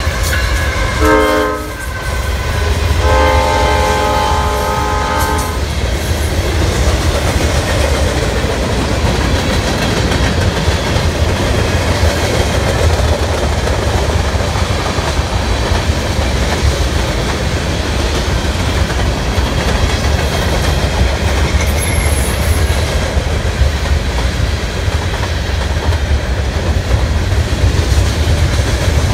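A freight train passing close by. The lead locomotive's multi-note horn sounds twice: a short blast that drops in pitch as it goes past, then a longer steady blast about three seconds in. After that comes the steady low rumble and clickety-clack of the freight cars rolling by.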